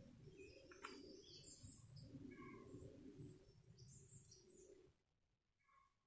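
Faint birdsong: short high chirps twice and a repeated short call, over a low rumble that stops about five seconds in.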